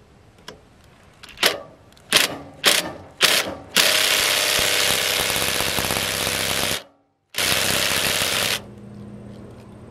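Cordless impact driver turning a screw extractor in a drilled-out broken stud to back it out: four short trigger bursts, then a long run of rapid hammering of about three seconds, a sudden break, and another run of just over a second.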